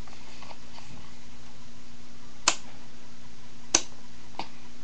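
Two sharp clicks about a second and a quarter apart, then a fainter third, over a steady low hum.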